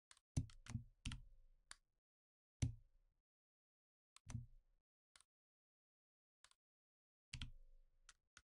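Computer keyboard and mouse clicks, sparse and irregular, some in quick clusters of two or three, each with a short dull thud.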